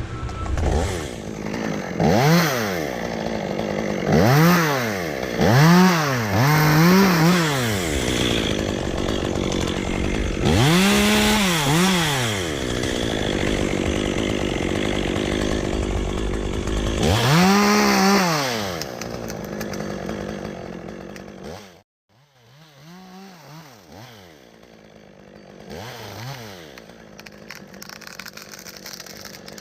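Chainsaw revving up and down again and again, its pitch rising and falling with each rev, with a spell of steady running between revs. About three-quarters of the way through it drops away suddenly, and the later revs are fainter.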